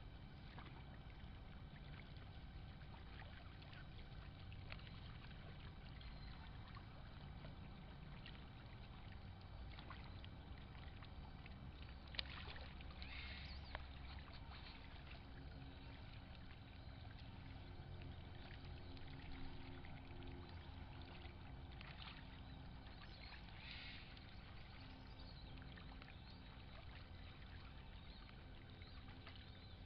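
Ducks paddling and bathing in shallow pond water: faint, soft splashing over a low steady rumble, with brief louder splashes about 13 and 24 seconds in.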